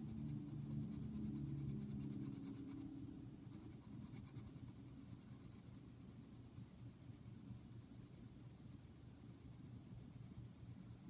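Pencil shading on paper: a steady scratching of quick, repeated strokes. A low hum sits under it for the first few seconds.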